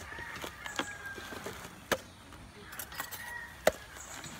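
Sharp knocks of a tool striking young coconut (buko) shells as they are opened: three loud knocks about two seconds apart, with lighter taps between.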